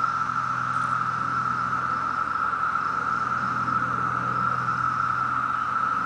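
Chorus of 17-year periodical cicadas: a steady, unbroken high-pitched drone of many insects calling together.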